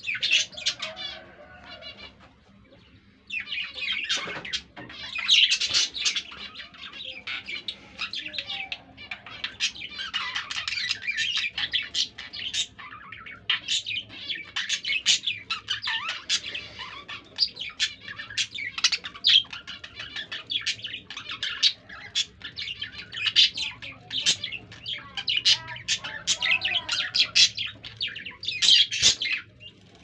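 Budgerigars chattering and warbling, a dense, continuous stream of quick high chirps with a brief lull about two seconds in, the chatter given as a pair mates.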